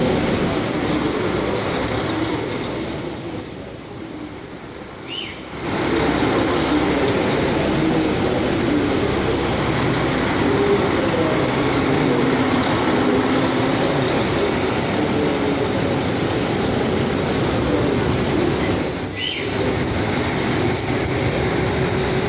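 A train running along a station platform: a steady rumble of wheels on the rails, with two brief high squeals, about five seconds in and again near the end.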